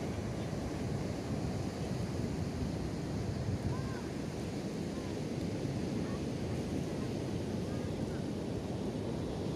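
Sea surf breaking on the beach, a steady rushing noise, with wind buffeting the microphone. A few faint short calls sound in the background around the middle.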